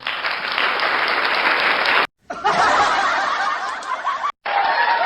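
Canned crowd-laughter sound effect from the OROTUNE OR800S sound card's built-in effect pads, triggered three times in a row. Each clip cuts off abruptly when the next starts or stops.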